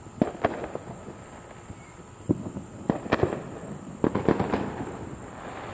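Firecrackers and fireworks going off around the neighborhood: sharp pops and bangs in quick clusters, several strings of them over a few seconds, over a steady high hiss.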